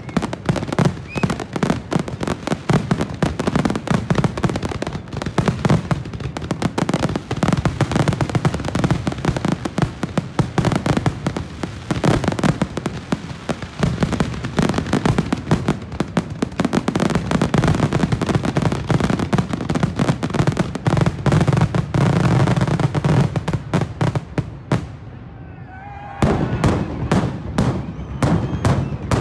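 Fireworks barrage: shells bursting in rapid, overlapping succession, a near-continuous run of booms and crackles. There is a short lull about 25 seconds in, then the bursts start again.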